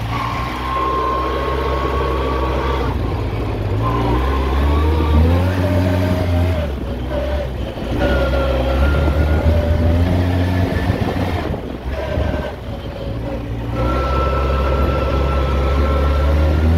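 Polaris ATV engine running while riding, its pitch climbing and falling several times as the throttle is opened and eased off.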